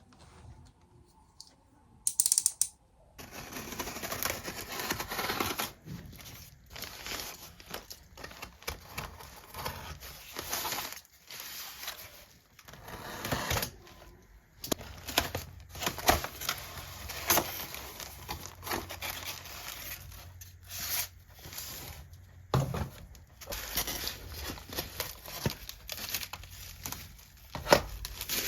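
Close handling noises: crinkling and tearing with many small clicks and scrapes. These run on from about three seconds in, after a single sharp knock just before.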